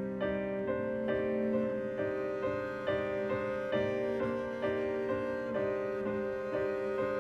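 Improvised violin and piano music: a slow, even pulse of piano notes under long held bowed notes.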